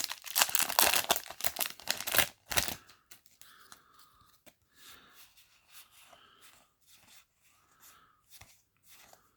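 Foil wrapper of a Yu-Gi-Oh! booster pack being torn open, a loud crinkly tearing for about the first three seconds, then only faint rustles.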